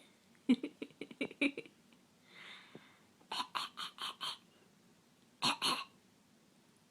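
A small child coughing in short, sharp bursts: a quick run of little coughs about half a second in, a breathy huff, then a run of five coughs, and two more near the end.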